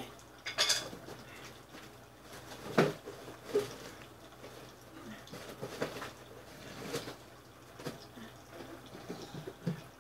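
Irregular light clinks and knocks of dishes and utensils being handled at a meal, with a short rustling burst under a second in and the sharpest knock about three seconds in.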